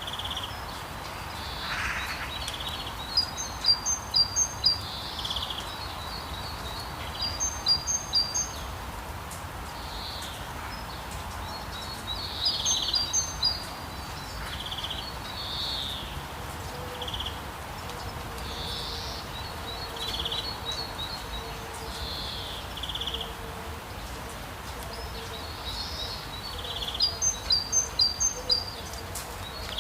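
Steady rain-ambience noise with songbirds calling over it: four bursts of rapid, short, high chirps, the loudest about three seconds in and near the end, with softer single calls between.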